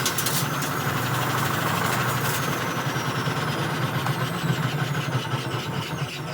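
Candy washing machine running hard, a steady motor hum with fast, even rattling from the drum.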